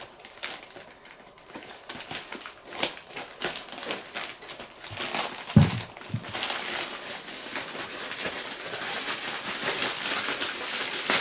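Packaging being handled and opened, crinkling and rustling with scattered clicks; a single thud about halfway through, after which the crinkling grows denser and more continuous.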